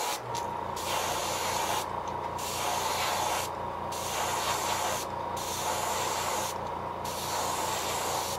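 Airbrush at about 20 psi spraying paint in five passes of a second or so each, hissing with brief breaks as the trigger is let off. A steady low hum runs underneath.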